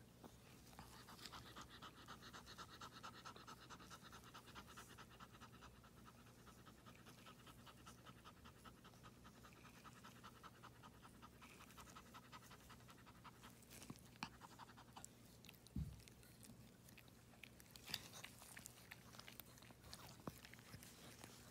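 Faint, quick, even panting of a Yorkshire terrier mother in labour, which stops about 15 seconds in. A few soft clicks and a dull thump follow.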